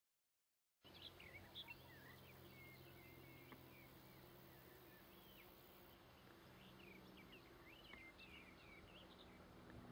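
Small birds chirping faintly in many short, quick calls over a faint low steady hum, beginning suddenly just under a second in.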